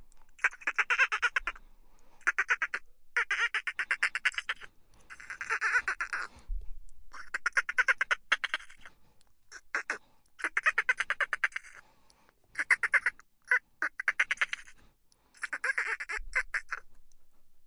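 Dolphin burst-pulse calls: rapid click trains that run together into buzzy, quacking chitters. They come in bursts of about a second each, about ten of them, with short pauses between.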